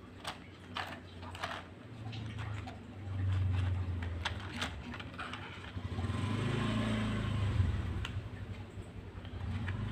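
Plastic clicks and knocks as a toy car is taken off a plastic toy car-carrier truck, with stretches of low engine-like rumble while the toy car is moved over the floor mat.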